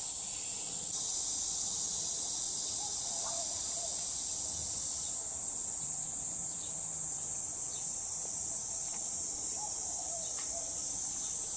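Chorus of cicadas droning steadily, high-pitched and unbroken.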